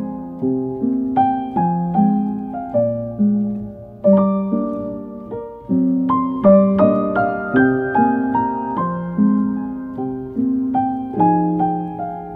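Background music: solo piano playing a slow melody, each note struck and fading away, at an even pace.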